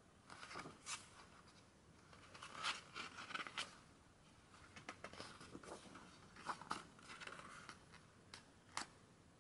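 Pages of a photobook turned by hand: faint paper rustling in several short spells as each page is lifted and laid over, with two sharp flicks near the end.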